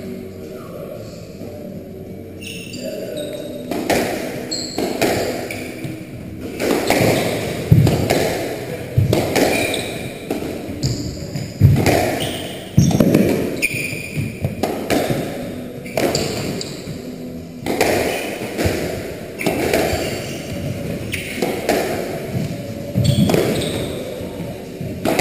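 Squash rally: the hard rubber ball is struck by rackets and smacks off the court walls with a sharp knock every second or so, with short high squeaks of players' shoes on the wooden floor in between.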